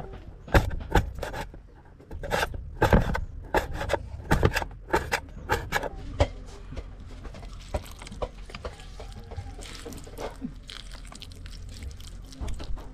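Uneven sharp knocks and scrapes on wood, coming quickly for about the first six seconds, then fading to quieter rubbing and scraping.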